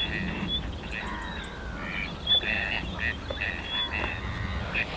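Waterfowl calling across a lake: a string of short, repeated honking and quacking calls from several birds, over the steady low rumble of distant road traffic.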